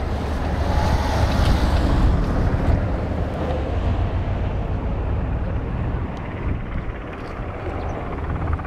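Wind buffeting the camera microphone: a steady low rumble with a rushing noise over it, easing slightly about two-thirds of the way in.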